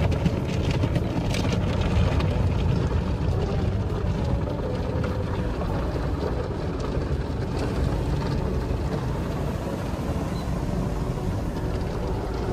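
Automatic car wash heard from inside the car: water and foam spraying and washing over the windows and body with a steady low rumble, muffled by the cabin.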